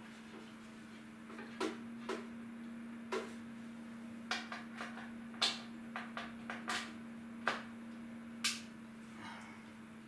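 Crockery and cutlery being handled at a kitchen sink: about a dozen sharp clinks and knocks at irregular intervals, over a steady low hum.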